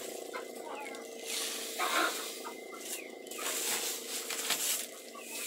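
Wheat bran poured into a woven plastic feed sack of ground cassava, heard as a few short hissing rustles of grain and sack, the largest about two seconds in. Small falling chirps of chickens repeat behind it.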